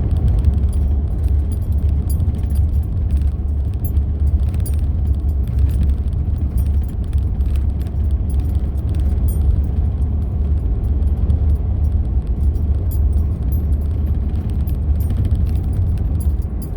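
Road noise of a vehicle driving on a rough highway surface: a steady low rumble with frequent light rattling clicks over it.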